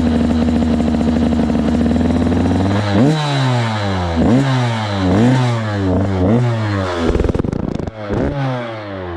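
Motor engine running through an aftermarket FMF Shorty exhaust: a steady held note for about three seconds, then the throttle blipped about once a second, each rev rising and falling back. Near the end comes a short rough, noisy stretch, then one more rev.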